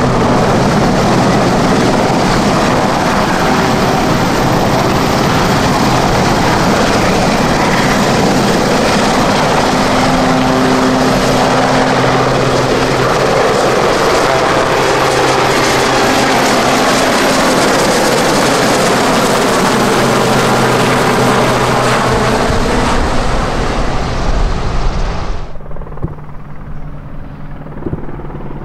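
Westland Sea King helicopter flying close by, its rotor and twin turboshaft engines running loud and steady with a low hum under the blade noise. Near the end the sound drops suddenly to a fainter, duller rotor sound with the helicopter far off.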